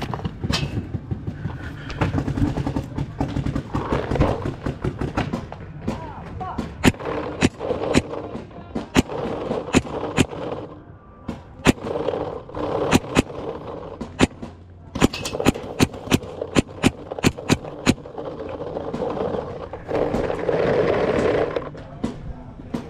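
Paintball markers firing in bursts of rapid shots, several a second, with pauses between the bursts.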